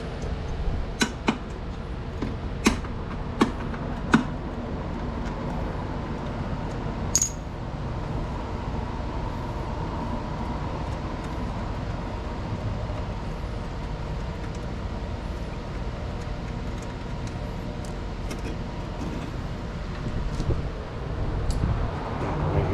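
Metal clinks and taps from hand tools and loose metal parts being handled during disassembly: a few sharp clicks in the first four seconds and one ringing clink about seven seconds in, over a steady low hum.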